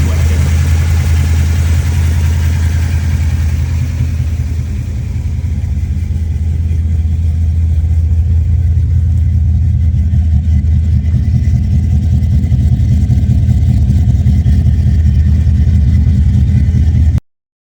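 Car engine idling steadily with a deep, even low note, easing slightly a few seconds in, then cutting off abruptly near the end.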